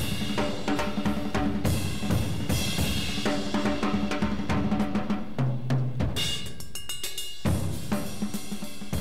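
Background music with a steady drum-kit beat of snare, bass drum, hi-hat and cymbal. The beat thins out briefly about six seconds in, then comes back.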